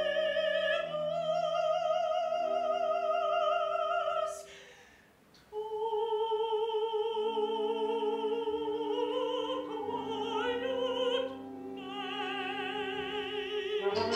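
Mezzo-soprano singing opera in long held notes with wide vibrato, over instrumental accompaniment. The music breaks off for about a second some four seconds in, then the voice comes back in.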